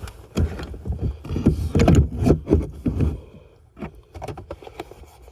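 Cabin air filters being handled: a run of rustles, clicks and knocks, busiest in the first three seconds.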